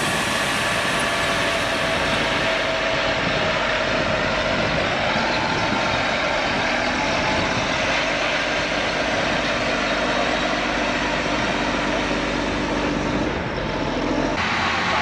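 Large farm tractor engine running steadily under load while pulling a field implement. The sound changes abruptly about three seconds in and again near the end.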